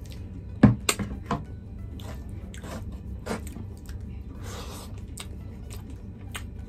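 Eating rice and chicken curry by hand: wet squishing of sauce-soaked rice between the fingers and chewing, with a sharp knock about half a second in as a glass bowl is set down on a wooden tray.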